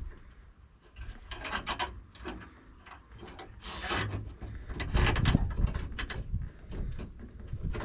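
Nylon zip ties being pulled tight, with quick ratcheting clicks and rasping rubs in several short bursts, the loudest about five seconds in.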